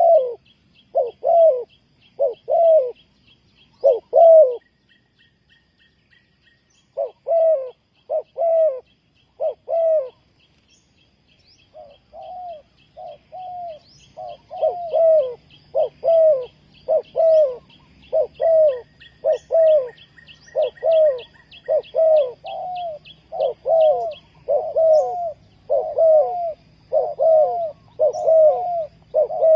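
Spotted dove cooing: a long series of short coos, each bending down in pitch, that breaks off about five seconds in and comes back as a faster, steady run. A faint, fast, high ticking goes on alongside.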